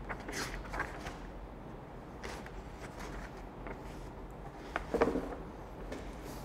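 Quiet classroom room tone with a low steady hum and scattered faint clicks and rustles, and one louder short sound about five seconds in.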